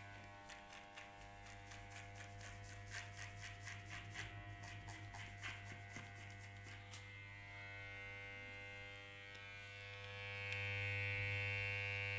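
Electric hair clipper with a guard comb running with a steady buzz, cutting hair in quick passes that add short crackly snips during the first seven seconds or so. From about ten seconds in it runs louder and steadier, with no cutting.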